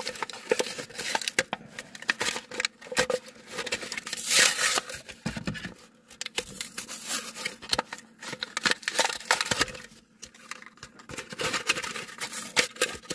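A Matchbox toy car's cardboard-and-plastic blister pack being handled and pried open: irregular crinkling, tearing and clicking in short noisy bursts.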